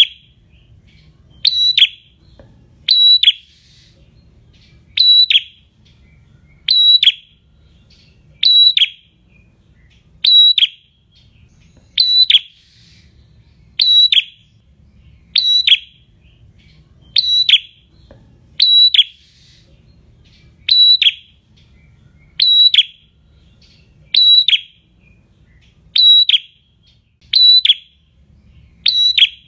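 Caged red-headed prenjak singing in the 'ngalun' style: a loud, sharp, high call that drops quickly in pitch, repeated steadily about every two seconds, now and then as a quick double note.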